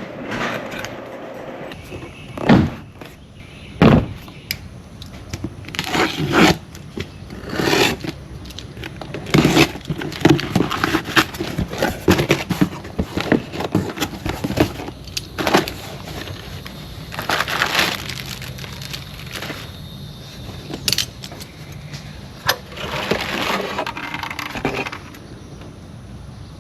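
Irregular clanks, knocks and scrapes of metal parts and tools being handled, some singly and some in quick clusters.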